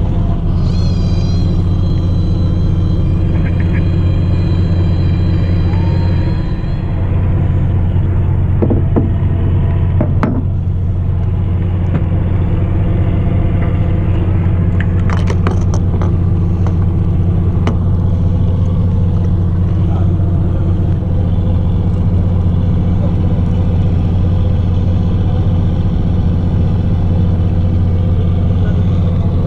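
Fishing boat's engine running with a steady, deep drone, with a few sharp knocks and clicks on deck midway.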